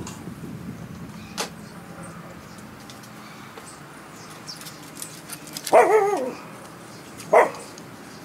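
A dog barking: a short wavering bark about six seconds in and another sharp bark a second and a half later, over a quiet background.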